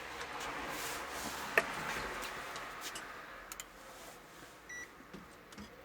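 Light handling clicks and ticks, with one sharp click about a second and a half in, then a short high electronic beep about three-quarters of the way through.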